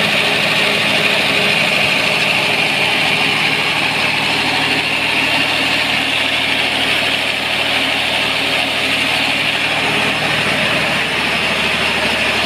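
Cummins 6BT inline-six turbo diesel of a generator set running steadily, with its belt-driven radiator fan turning on a newly fitted belt.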